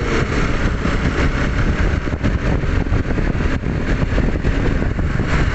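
Motorcycle running at road speed on the move, its engine mixed with steady wind rush over the onboard microphone.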